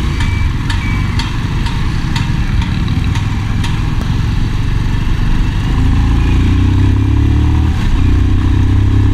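Motorcycle engine running while the bike rides along, with a few sharp ticks in the first few seconds. About six seconds in the engine gets louder and its note rises as the bike accelerates.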